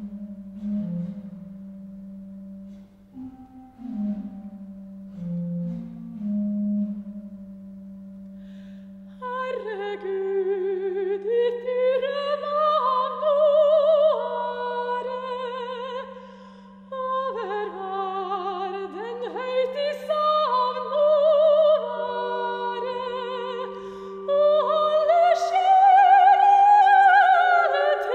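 Church organ playing an introduction of soft held notes; about nine seconds in, a soprano voice enters singing a Norwegian hymn to a Lofoten folk tune, with vibrato, over the organ's sustained accompaniment.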